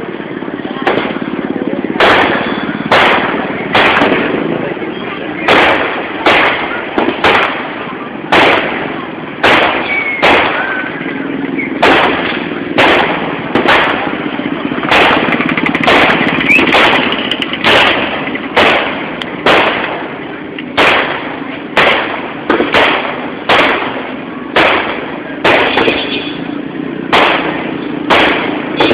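Aerial fireworks going off in a rapid series of sharp bangs, about one or two a second, each with a short fading tail, over a steady background din.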